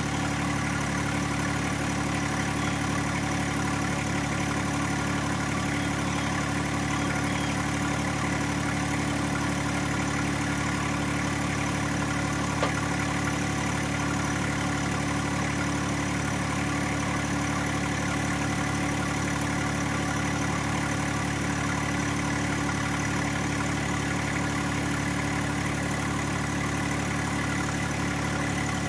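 John Deere 1025R compact tractor's three-cylinder diesel idling steadily, with one sharp click about halfway through.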